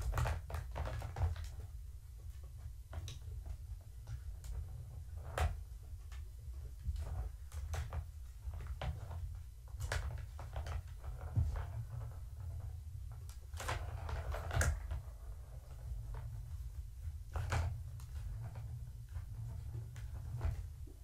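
Kittens batting the ball around a Catit plastic trackball toy: irregular clicks, rattles and knocks as the ball is swatted around its circular track, over a steady low hum.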